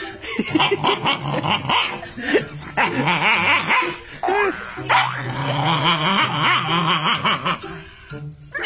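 A dog barking and growling at its own reflection in a mirror, in repeated rapid bursts with a couple of short pauses.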